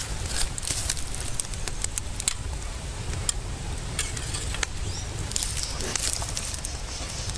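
Open wood fire crackling with sharp, irregular snaps over a steady low rumble.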